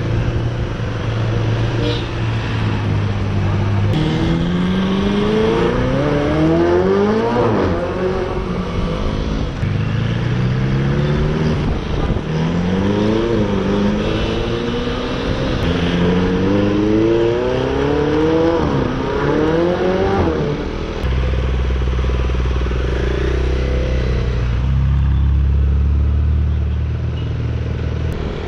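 Vehicle engine accelerating through the gears again and again in traffic, its pitch climbing and then dropping back at each shift. Before and after the run it holds a steady low drone.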